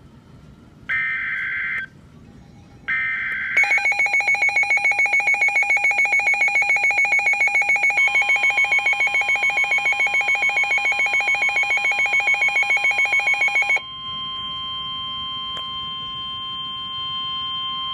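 Emergency Alert System tones on a WR-300 NOAA weather radio. Three short raspy bursts of the SAME digital alert header come first, then the radio's own loud, rapidly pulsing alarm for about ten seconds. Partway through the alarm, the steady single-pitch warning alarm tone starts, and it carries on alone once the pulsing alarm stops near the end.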